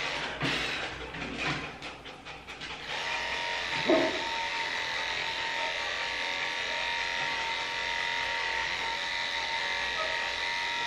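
Electric dog-grooming clippers running with a steady hum, dipping for a couple of seconds near the start. About four seconds in, the muzzled Maltese gives one short cry over the clippers.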